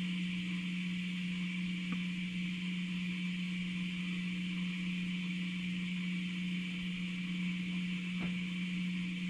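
A steady low hum with an even hiss above it, and two faint ticks, one about two seconds in and one near the end.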